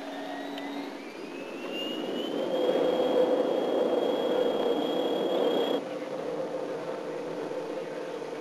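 Jet airliner engines whining, rising in pitch and growing louder as they spool up, then holding steady over a rushing noise. The sound cuts off suddenly about six seconds in, leaving a lower, steady cabin hum.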